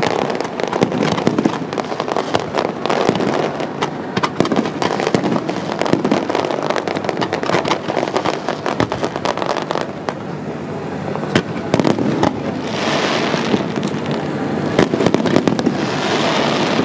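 Fireworks display: a dense, quick run of bangs and crackles from aerial shells bursting and low-level mines firing, with two stretches of hiss in the last few seconds.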